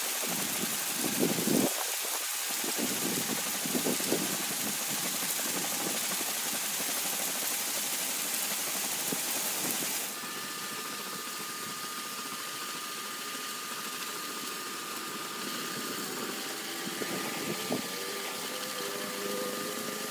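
Pressure washer jet spraying against a masonry wall: a steady hiss of water with the washer's pump running underneath. About halfway through the hiss drops and a steady high whine comes up.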